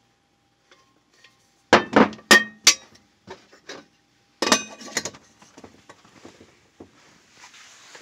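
Enamelware kettle lid clinking against the enamel-coated steel kettle as it is handled and set back on the rim: four sharp clinks in quick succession about two seconds in, another cluster about four and a half seconds in, then lighter ticks and handling noise.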